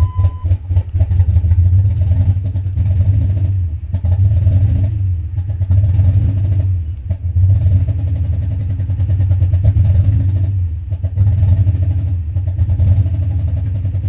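2004 Dodge Ram 1500's 5.7-litre Hemi V8 idling unevenly, heard from inside the cab, its level swelling and sagging every second or two: the erratic idle of a large intake vacuum leak that sets code P2172. A steady electronic chime tone sounds for the first half second.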